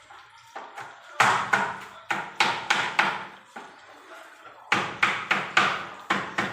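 Knife chopping on a cutting board, sharp even strokes at about three a second, in two runs with a short pause between them.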